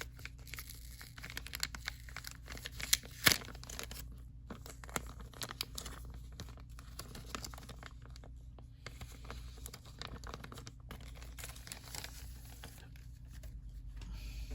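Toy packaging being handled: crinkling and rustling with scattered small clicks as the box's contents are lifted out and turned over, and one sharp snap about three seconds in.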